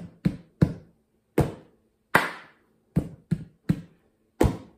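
Hands playing a slow cup-rhythm pattern on an upturned plastic cup and a tabletop: taps on the table either side of the cup, a hand clap, and two-finger taps on top of the cup. About nine sharp hits come in small groups with short gaps between.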